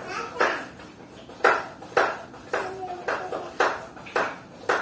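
Hand trigger spray bottle misting houseplants: a steady run of short hissing spritzes, about two a second.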